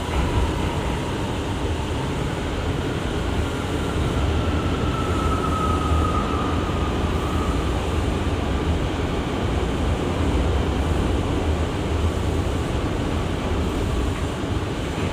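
Steady low rumble and equipment hum inside a Bombardier-built R179 subway car standing in a station. A faint whine rises slightly in pitch a few seconds in, then fades.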